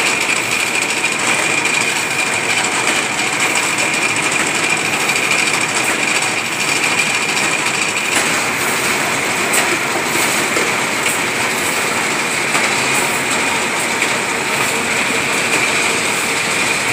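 Automatic silk reeling machine running: a steady mechanical clatter with a thin, steady high whine over it.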